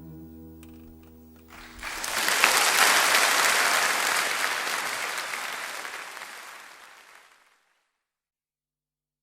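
The last guitar chord of a folk song rings out, then audience applause breaks out about two seconds in and fades away to silence.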